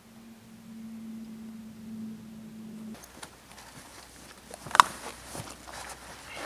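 Canvas packs being handled and rummaged through: rustling and scattered clicks of straps and buckles, with one sharp metallic clink about two-thirds of the way in. Before that, a low steady hum.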